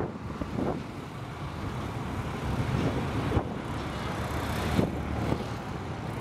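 Steady rumble of distant motor traffic and engines, with a couple of brief sharp knocks about three and a half and five seconds in.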